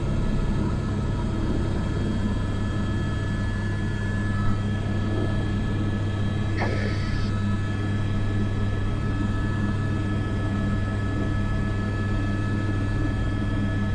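Airbus AS350 B3 helicopter running steadily in flight, heard from inside the cockpit: an even low drone from the single turboshaft engine and rotors, with a faint steady high whine over it.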